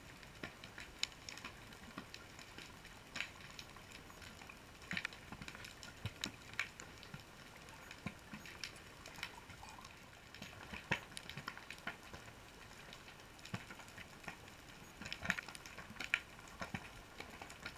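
Underwater ambience recorded by a GoPro on a rocky reef: a soft steady hiss with irregular sharp clicks and crackles, a few a second.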